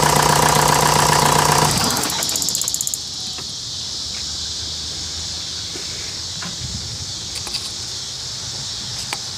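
Volkswagen TDI diesel engine running, then shut off about two seconds in. It runs down and stops, leaving a steady high insect buzz and a few light clicks. The engine has a stuck piston ring, which leaves one cylinder low on compression and smoking.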